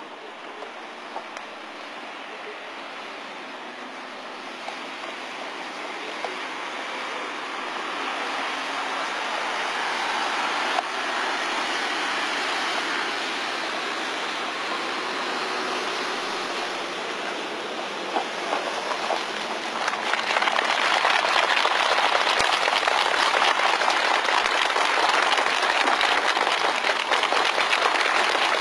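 A rushing noise that slowly grows louder, then, about twenty seconds in, a crowd breaks into sustained applause.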